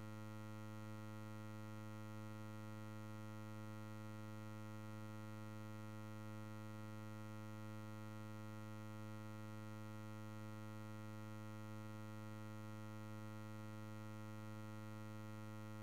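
A steady, unchanging low hum with a stack of overtones, like an electrical or synthesized drone.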